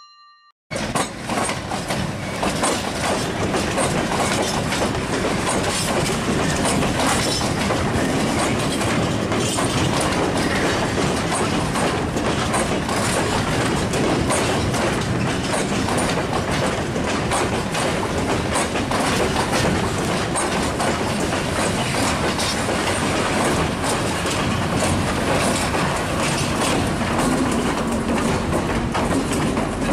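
Train of empty open freight wagons rolling past slowly, wheels clacking and rattling over rail joints and points, starting about a second in. Near the end a diesel shunting locomotive's engine note joins as it passes close by.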